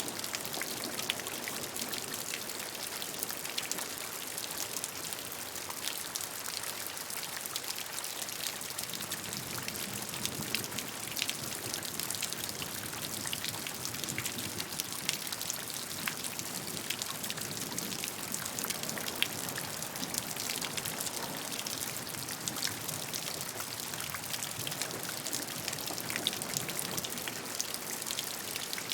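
Steady rain with many distinct drops ticking and pattering on a surface, over an even hiss of falling rain.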